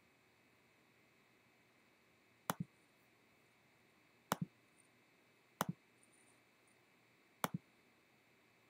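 Four sharp clicks of a computer pointing-device button, each a quick press and release, one to two seconds apart, over a faint steady hiss.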